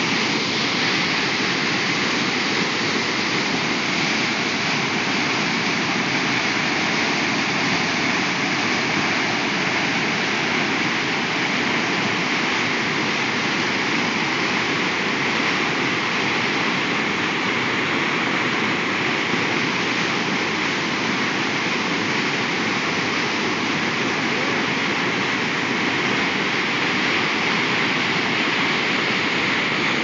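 The Charles River in flood pouring over a low dam: a steady, unbroken rush of whitewater, swollen after days of heavy rain.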